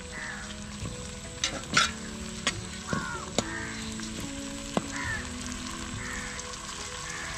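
Chopped tomatoes, shallots and green chillies sizzling in hot oil in a metal pan, with a metal slotted spatula stirring and clacking against the pan several times in the first five seconds.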